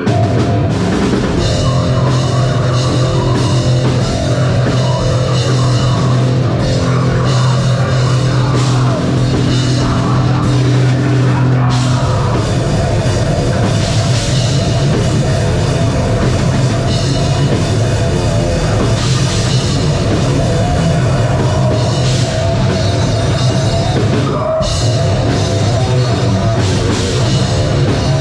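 Live heavy metal band playing loud, with distorted guitars, bass and a drum kit keeping a steady beat.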